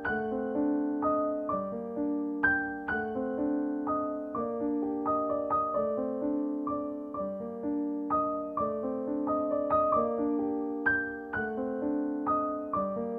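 Background music: gentle solo piano playing a repeating pattern of notes.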